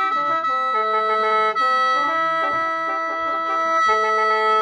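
Khaen, the bamboo free-reed mouth organ of Laos and Isan, played in lai noi mode: a moving melody sounded in several notes at once over a steady high drone, without a break.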